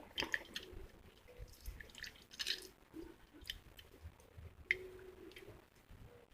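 Hands preparing food: irregular soft wet squishes and small clicks, with a sharper click nearly five seconds in.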